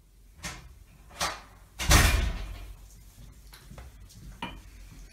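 A door slamming shut about two seconds in, a heavy thump that dies away briefly, after two lighter knocks; a smaller click near the end.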